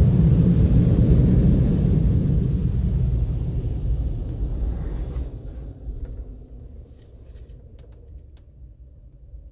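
Car wash dryer blowers heard from inside the car's cabin as a loud low rush. The rush fades away over the first five or six seconds as the car leaves the wash, leaving a faint low hum.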